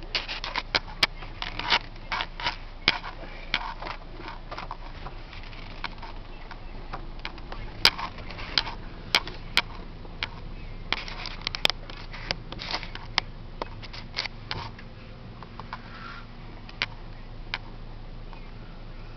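A Ford Ranger's engine hums low and steady, heard from inside the cab. Irregular sharp taps and clicks come in clusters over it.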